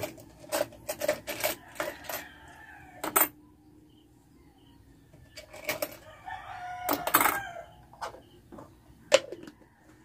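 A rooster crowing, mixed with sharp clinks and knocks of a drinking glass and a steel cup being handled on a wooden shelf; the loudest clinks come about three seconds in and near the end.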